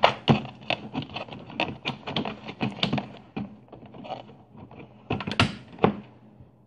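Irregular clicks, knocks and rustling as hands handle things on an electronics workbench close to the microphone, over a faint steady low hum.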